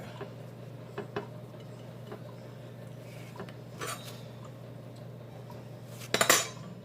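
Kitchen utensils and dishes being handled: a few light clicks and clinks, with a louder brief clatter near the end, over a steady low hum.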